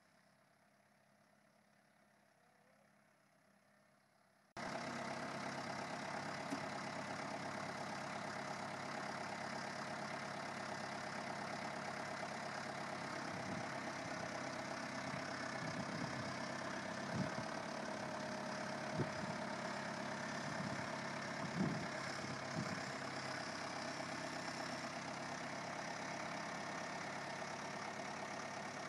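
Near silence, then, cutting in suddenly a few seconds in, the diesel engine of a New Holland Boomer 3045 compact tractor running steadily at idle, with a few short knocks midway.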